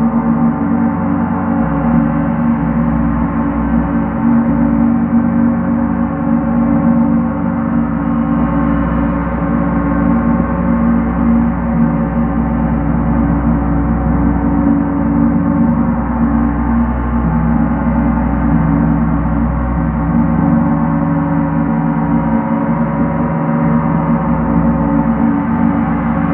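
Large gong played continuously with a pair of soft felt mallets: a steady, loud wash of many ringing tones, strongest in the low range, with no separate strikes standing out.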